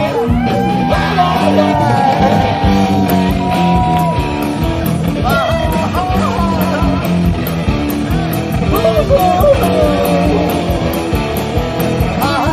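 Rock band playing live: guitar, bass and drums, with a lead melody sliding up and down over a repeating bass line.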